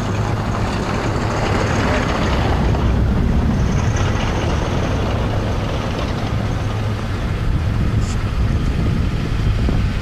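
A motor vehicle's engine running steadily: a constant low hum with a rush of noise over it.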